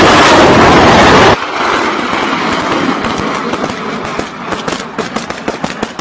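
BM-21 Grad multiple rocket launchers firing a salvo: a loud, continuous rushing roar of the rockets leaving the tubes that breaks off abruptly about a second in, then a quieter rushing noise laced with many sharp cracks that come faster toward the end.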